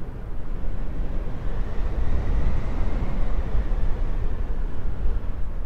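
A loud, low rumble that swells in over about the first second and then holds steady.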